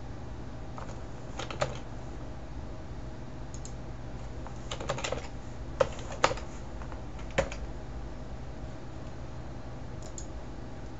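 Computer keyboard keys being pressed to enter a login password: a handful of separate keystrokes, with a quick run of several about five seconds in. A steady low hum lies underneath.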